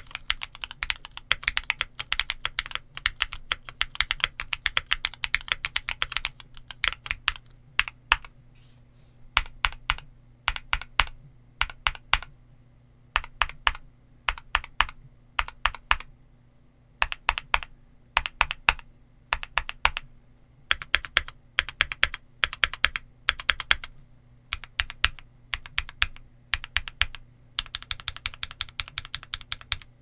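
Typing on a Luminkey80 aluminium tenkeyless mechanical keyboard with Gateron Sylva switches and double-shot PBT keycaps. It starts with fast continuous typing, then single key presses come in short clusters with brief pauses, and a fast run of typing returns near the end.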